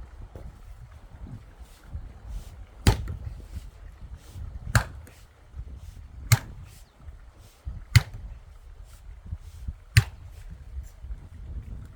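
Firewood being split with an axe: five sharp strikes, one every second and a half to two seconds.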